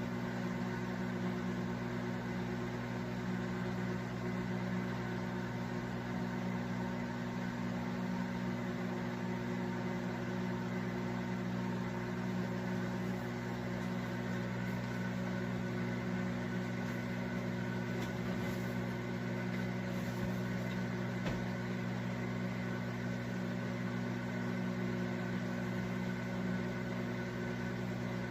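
Microwave oven giving off a steady low electrical hum that does not change. The owner says it carries on even after the cooking has stopped and thinks the turntable turns too slowly.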